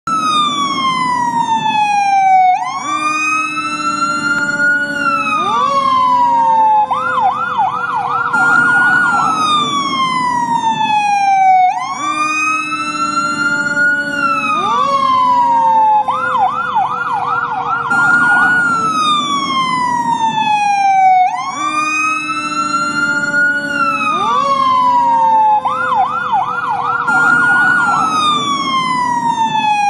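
Fire truck electronic siren cycling between a slow rising and falling wail and a quick yelp of about four sweeps a second. The pattern repeats about every nine to ten seconds.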